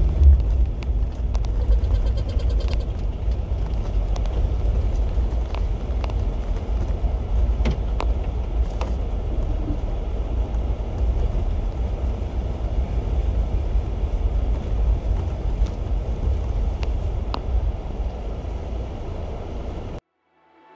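Jeep Wrangler Sahara driving, a steady low engine and road rumble heard from inside the cab, with a few light ticks. It cuts off suddenly near the end.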